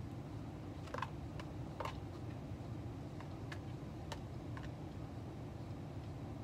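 Scattered small clicks and taps of someone eating from a plastic food container, irregular and a few per second at most, over a steady low background hum.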